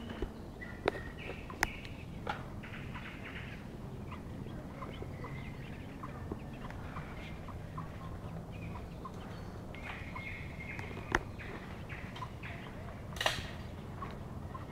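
Ducklings peeping over and over in short high calls, with a few sharp clicks standing out above them.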